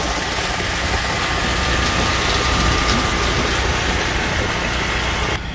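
Concrete mixer truck running steadily with a faint steady whine while it discharges wet concrete down its steel chute.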